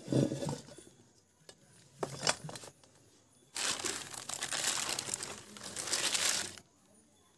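Leaves crinkling and rustling as they are packed down into a clay pot. The rustling runs for about three seconds from halfway through, after a soft knock at the start and a click about two seconds in.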